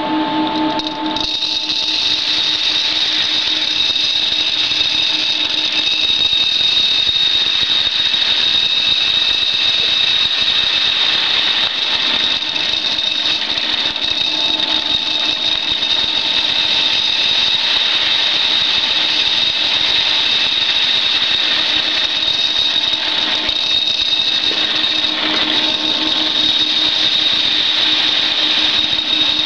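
Bird-seed husk-cleaning machine running steadily: an even motor hum with a high, constant whine over a rushing noise.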